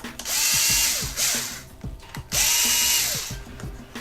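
Electric screwdriver running in two bursts of about a second each, its motor whine rising, holding and dropping away each time, as it drives the two screws into the clipper's housing.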